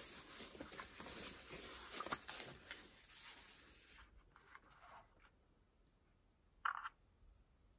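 Faint rustling and light clicks of a keyboard's packaging being handled during unboxing, dying away after about three seconds, with one short brush of noise near the end.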